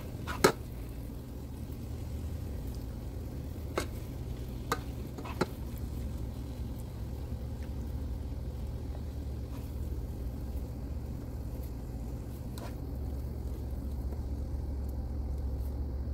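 Tongs tossing cooked lo mein noodles in a ceramic bowl, with a few sharp clicks of the tongs against the bowl, the loudest just after the start, over a steady low hum.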